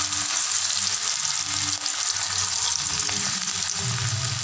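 Small pieces of flour-coated marinated chicken sizzling steadily as they shallow-fry in hot oil in a pan.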